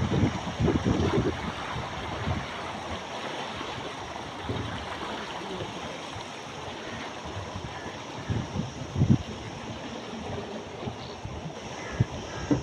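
Canal water rushing steadily past below a footbridge. Wind rumbles on the microphone in the first second or so and again briefly near the middle and the end.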